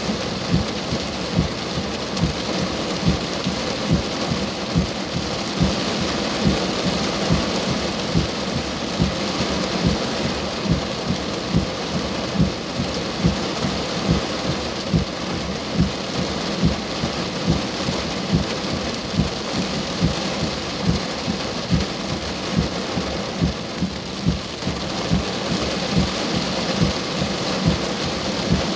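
Heavy rain falling steadily, with a regular low thump about three times every two seconds.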